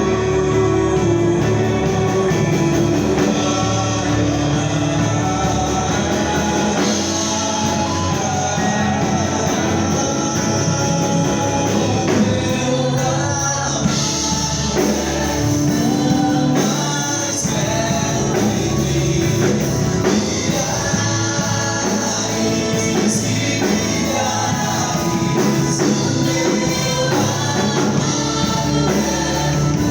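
Church worship band playing a gospel song with singing, steady and unbroken.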